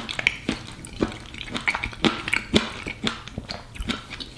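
Close-up eating sounds: wet chewing and mouth clicks from spoonfuls of thick pea stew, with a metal spoon dipping and scraping in a ceramic bowl. Short, irregular clicks come in quick succession.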